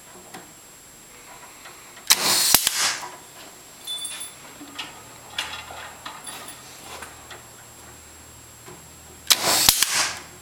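A hangers clip gun fires twice, about seven seconds apart, fastening wire hangers onto an oyster-cage float. Each shot is a short loud burst of noise ending in a sharp snap. Light clicks and rattles of wire and metal parts fill the time between.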